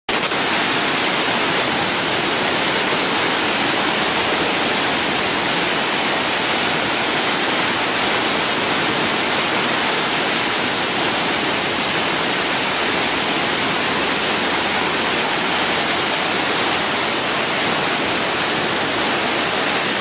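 River rapids: whitewater churning and rushing in a loud, steady noise that does not let up.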